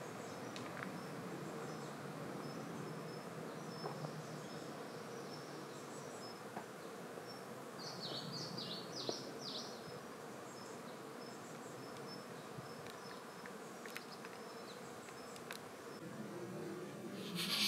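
Quiet forest ambience with insects buzzing steadily, a few short high bird chirps about eight to nine seconds in, and a brief louder burst near the end.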